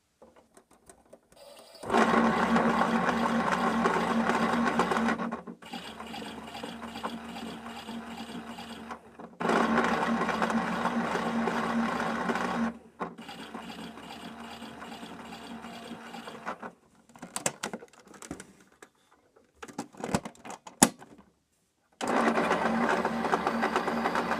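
Chad Valley toy washing machine's small electric motor running with a steady hum. It drops to a quieter run twice and then stops while a few clicks and knocks sound, before starting up again near the end.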